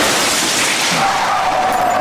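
Multiple-car crash sound effect: a dense, loud rush of crashing and scraping noise, with a high tyre screech coming in about halfway through and holding.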